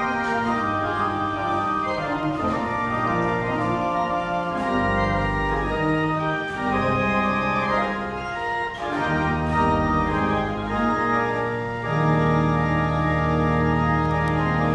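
Church pipe organ playing full chords over sustained pedal bass notes. About twelve seconds in, it settles on a long held chord with a deep pedal note.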